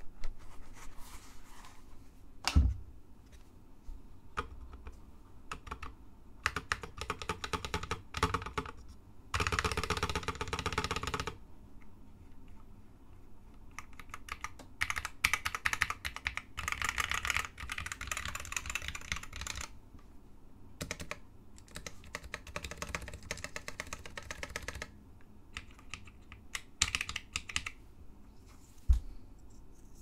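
Typing on a custom 60% mechanical keyboard with Hi-Tek 725 "space invader" white linear switches in an aluminum sandwich case: runs of rapid keystrokes with short pauses between, the densest run about ten seconds in. A single thump about two and a half seconds in and another near the end.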